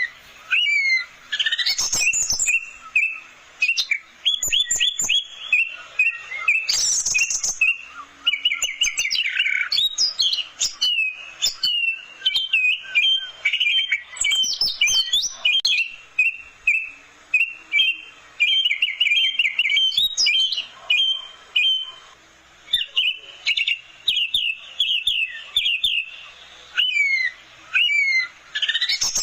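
Orange-headed thrush singing a long, varied song of quick whistled phrases and rapid chattering trills, with short pauses between phrases.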